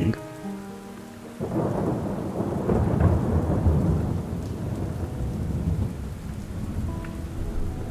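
Steady rain with a long roll of thunder that builds about a second and a half in, peaks, then slowly fades.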